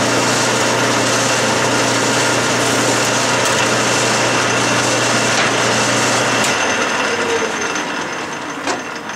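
Clausing metal lathe running at 500 RPM under power feed, its parting tool cutting off a 1¼-inch steel bar with oil dripped on the cut: a steady motor hum with cutting noise. About six and a half seconds in the motor hum cuts off and the sound fades as the chuck spins down, with a short click near the end.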